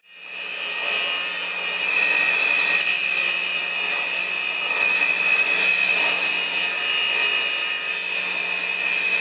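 Shoe-repair finishing machine running with a steady high whine while the edge of a rubber boot's new sole and heel is held against its sanding wheel, giving a continuous grinding rasp.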